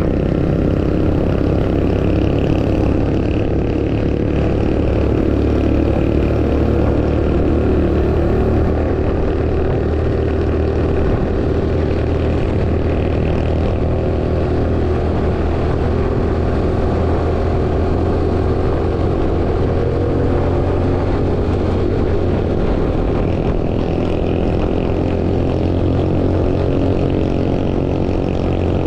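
Suzuki underbone motorcycle's small single-cylinder engine running steadily at road speed, with heavy wind rushing over the microphone.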